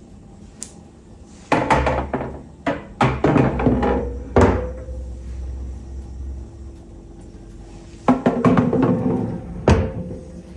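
Hard kitchen containers knocking and clattering as they are handled and set down, in two bursts of quick knocks, some with a short ring. Quiet background music plays underneath.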